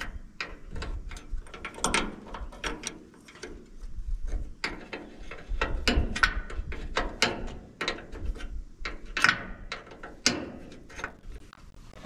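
Ratchet socket wrench clicking in short, irregular runs as a bolt on a hay baler's knotter is loosened by hand, with metal tools clinking against the frame.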